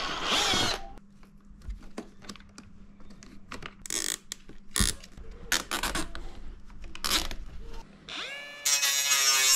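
Power drill driving screws into a plastic milk crate: scattered clicks and knocks of handling, then near the end the drill motor spins up with a rising whine and runs on steadily.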